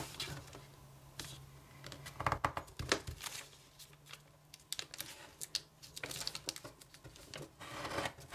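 A sheet of kami origami paper rustling and crinkling in short, scattered bursts as it is folded and creased by hand, over a faint steady low hum.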